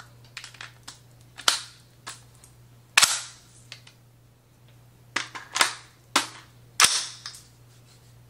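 Sharp metallic clacks of AR-type rifles being handled and worked: a few light clicks, then about five loud clacks, the loudest about three seconds in, over a steady low hum.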